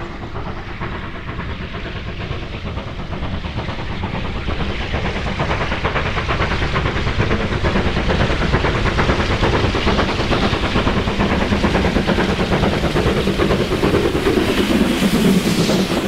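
GWR Manor class 4-6-0 steam locomotive No. 7820 working a passenger train, its chuffing exhaust beats growing louder as it approaches. It passes close by near the end with the rumble and clatter of its wheels.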